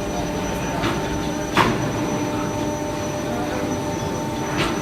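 Electro-hydraulic CNC press brake running, a steady hum with fixed tones from its hydraulic pump and motor. A sharp clack about a second and a half in, with lighter clicks near the start and the end.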